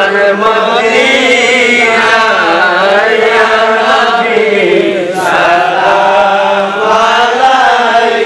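A man's voice singing a Bengali Islamic devotional song (gojol) in long, drawn-out notes that waver and glide in pitch, with a short break about five seconds in.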